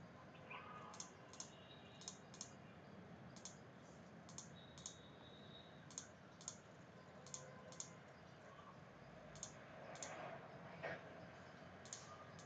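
Computer mouse clicking in quick pairs, about seven pairs each a second or two apart, over faint room hiss: each pair is one line selected and then the side picked for an AutoCAD offset.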